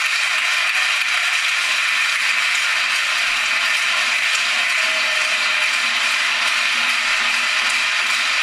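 Steady crowd noise in a basketball hall during play, a thin, even din with no single voice standing out.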